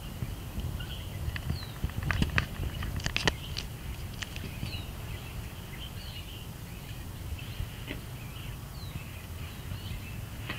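Faint, soft high chirps from Coturnix quail, short and repeated every second or so, over a steady low outdoor rumble. A few sharp clicks come in a cluster about two to three and a half seconds in.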